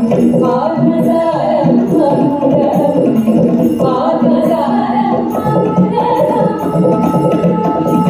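Music for a Kerala group dance: female singing in a Carnatic-style melody over a light, even percussion beat.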